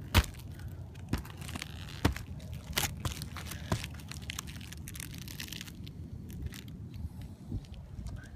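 Footsteps crunching on a snowy asphalt-shingle roof, about one step a second through the first few seconds, then only a few scattered small crunches, over a low steady rumble.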